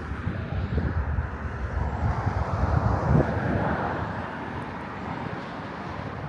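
Engine drone of a passing vehicle, swelling about two to three seconds in and then fading away, over low wind rumble on the microphone.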